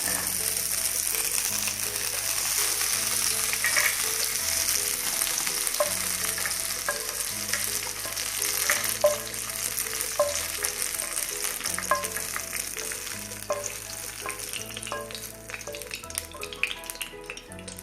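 Shallots, garlic and ginger sizzling in hot coconut oil in a pan while a spoon stirs and scoops them out; the sizzle thins out in the last few seconds. Soft background music underneath.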